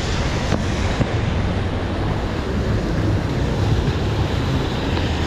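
Steady loud hiss of heavy rain on a city street mixed with passing traffic, with a low rumble of wind buffeting the microphone.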